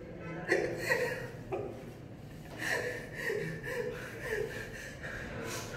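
A man laughing without words in short, breathy bursts, with a longer run of them in the middle.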